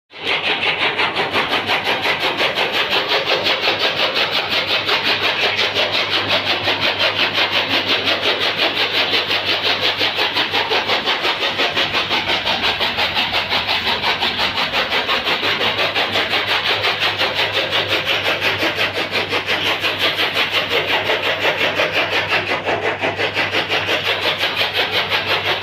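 An engine or motor running steadily, with a fast, even pulsing beat and a low steady hum beneath it.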